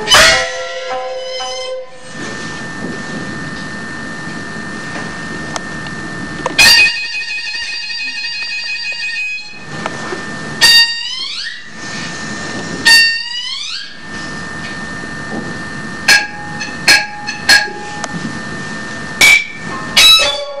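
Peking opera accompaniment: loud strikes of gongs and cymbals, whose ringing bends in pitch, punctuate a steady backing of string instruments. There is a quicker run of strikes near the end.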